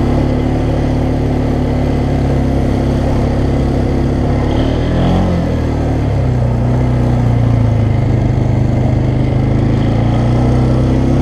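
Polaris Sportsman 500 HO ATV's single-cylinder four-stroke engine running steadily while riding. Its note dips briefly about halfway through, then comes back up.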